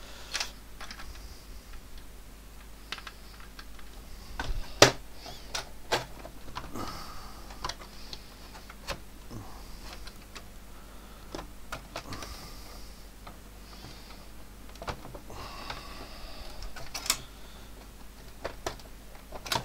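Beige plastic case of an Atari 800 being fitted back together by hand: scattered clicks and knocks as the lid seats on the base, with scraping between them. The loudest knock comes about five seconds in, with more clicks near the end.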